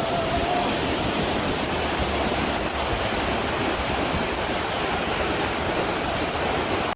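Steady rushing noise of ocean surf on a beach, mixed with wind on the microphone.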